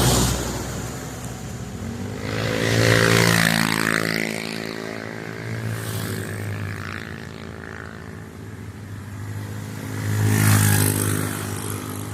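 Motor vehicles running on a road. One passes close about three seconds in, its engine pitch dropping as it goes by, and another swells louder near the end.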